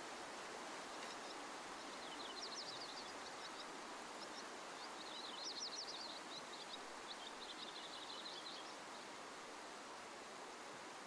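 Steady rush of a river, with a bird singing rapid, chattering runs of high notes in several bursts from about a second in until near the end.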